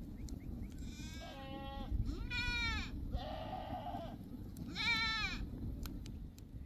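Goats bleating: four high calls, one of them hoarse, over a low steady rumble.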